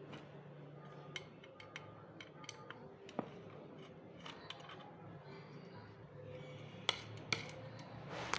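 Scattered light clicks and taps of small hard objects being handled, with two sharper clicks about seven seconds in, over a low steady hum.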